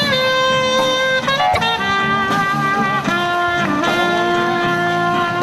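Brass-led music with long held notes that change every second or so.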